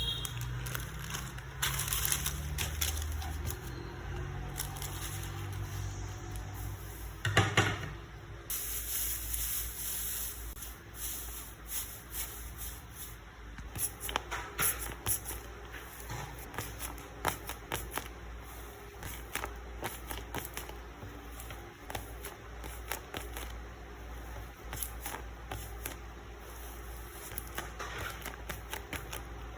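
Paper rustling and light taps and clicks as handmade paper squishies and a paper box are handled and packed, with a louder knock or crinkle about seven seconds in.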